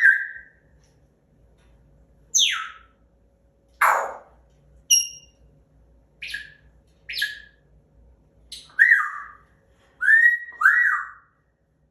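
African grey parrot making its 'bad noise': a string of about a dozen loud, separate calls, mixing whistles that slide down in pitch with a harsh squawk, then rising-and-falling whistles near the end.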